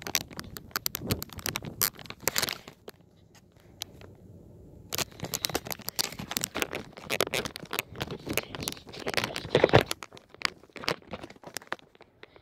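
Irregular rustling and crackling with many sharp little clicks. It drops to a quiet lull about three seconds in and picks up again about two seconds later.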